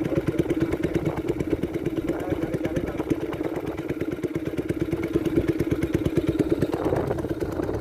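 Small boat engine running steadily at low speed, with a fast, even putter and a steady hum.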